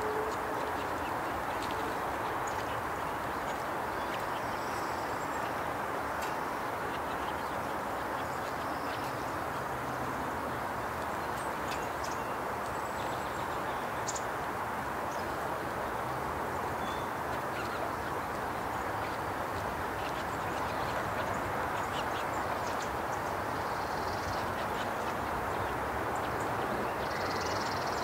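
Steady rushing outdoor background noise, with faint short chirps and ticks from small songbirds scattered over it.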